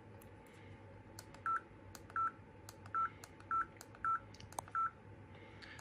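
Kingslim D2 dash cam giving a short, high electronic beep at each button press, six beeps in all, about one every half second to three-quarters of a second, with faint clicks of the buttons in between, as the clock's time fields are stepped through.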